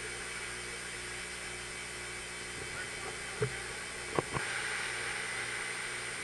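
Steady hiss of hurricane wind and rain. A few short knocks come a little past the middle.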